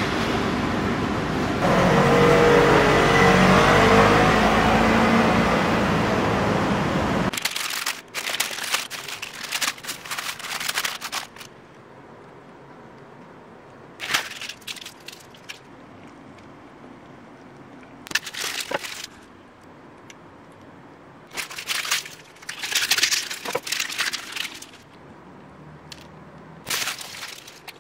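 Loud, steady street and traffic noise for the first seven seconds or so, cutting off abruptly. Then a quiet background broken by several short bursts of crinkling paper wrappers as pepper buns are handled and torn open.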